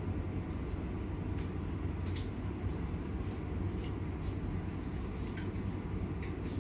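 Steady low hum of a fan running, with a few faint light clicks scattered through it.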